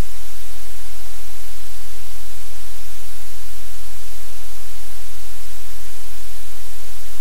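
Loud steady static hiss with a low hum underneath, unchanging throughout: noise on the livecam's audio feed.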